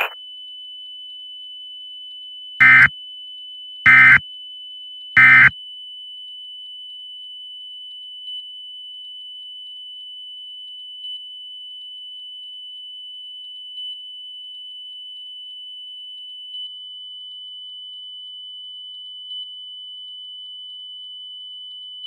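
Emergency Alert System end-of-message signal: three short bursts of SAME digital data, a harsh warbling screech, a little over a second apart, closing the broadcast alert. Beneath them a thin steady high tone continues, with a faint blip about every three seconds.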